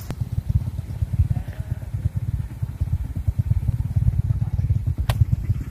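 Motorcycle engine running in slow traffic, a low uneven rumble, with a sharp click at the start and another about five seconds in.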